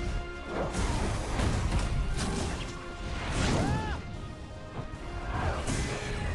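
Film score with action sound effects: repeated crashes and whooshes over the music, and a short pitched sound that rises and falls about three and a half seconds in.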